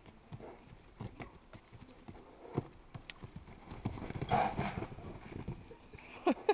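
Horse's hooves thudding and scuffing in sand as it moves quickly around the pen, busiest about four seconds in, with two sharp, loud knocks just before the end.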